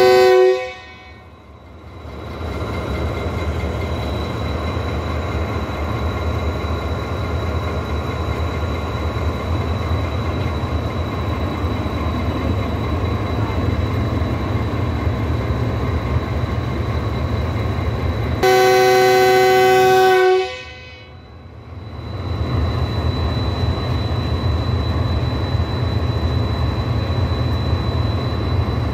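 A Pakistan Railways GEU-40 diesel-electric locomotive pulling out with its train: its horn sounds a chord that cuts off about half a second in, then the engine runs with a steady deep rumble. About two-thirds of the way through, the horn sounds again for about two seconds, and the engine rumble picks back up after it.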